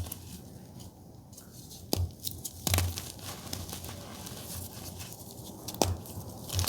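Blue reformed gym chalk being crushed and crumbled: fine, crunchy crackling with a few sharper snaps, about two and three seconds in and again near the end.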